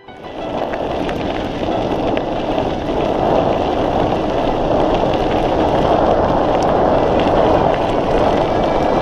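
Mountain bike riding downhill: wind rushing over the camera microphone and tyres rolling over a dirt trail, with a few small clicks and rattles.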